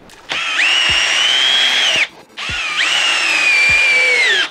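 Milwaukee M12 Fuel Gen 2 hammer drill in drill mode, high speed, driving 3½-inch deck screws into wood. Two screws go in one after the other: each is a whine of about a second and a half that jumps up at the start and then slowly sinks in pitch, with a short pause between.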